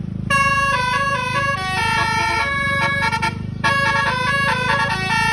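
Indonesian 'telolet' bus horn: several horn tones playing a quick stepping melody over a steady low hum, in two phrases with a short break about three and a half seconds in.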